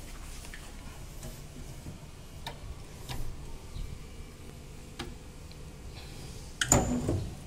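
Scattered light clicks and knocks from a generator's removed sheet-metal side panel and its quarter-turn key latch being handled, with one louder metallic clatter near the end.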